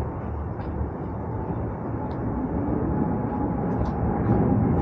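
Wind buffeting the camera microphone: a steady, fluttering low rumble, with a faint steady hum and a few light clicks over it.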